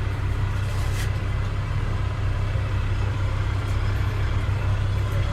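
Sports car engine idling with a steady, even low rumble.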